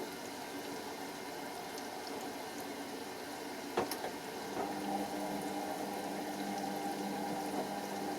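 Pro Action A105QW washing machine filling: water runs into the drum while the drum tumbles to wet the load. The drum motor's hum pauses, then a single sharp click comes just before halfway and the hum starts again, the drum turning once more.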